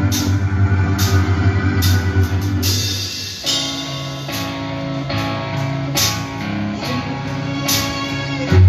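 Live rock band music played through a concert PA system: guitar over bass and drums, with cymbal hits at a steady beat and no vocals.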